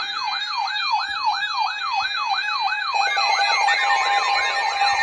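Electronic siren in a fast yelp, its pitch sweeping up and down about three times a second. About three seconds in, a steady tone joins it.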